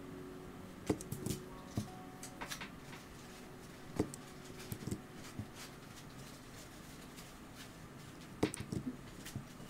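Light, scattered clicks and taps of a computer mouse and keyboard, coming in small clusters about a second in, around four to five seconds, and again near the end.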